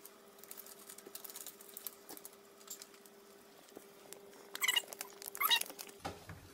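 Dry powder poured from a foil bag pattering into a saucepan, with the foil bag crinkling twice near the end.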